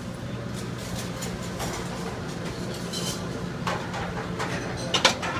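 Commercial kitchen background: a steady low hum of kitchen equipment with scattered clinks of dishes and metal, and a sharp clatter about five seconds in.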